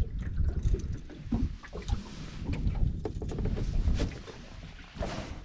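Irregular knocks, thumps and clatter of a person moving about an aluminium fishing boat and handling gear on its deck.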